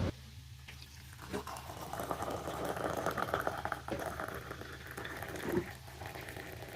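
Liquid bubbling in a pot, a dense crackle of small pops that builds up over a few seconds, with one light knock near the end.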